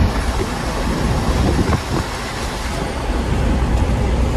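Steady rumble of engine, tyres and wind inside the cab of a vehicle driving at road speed.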